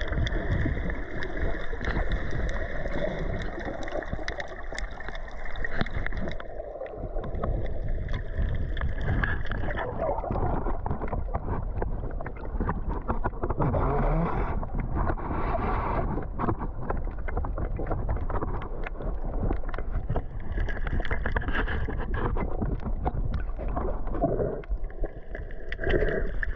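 Underwater sound picked up by a submerged camera: a constant muffled rush of water, dotted with many faint clicks and crackles. A steady hum runs through the first ten seconds or so, fades out, and returns near the end.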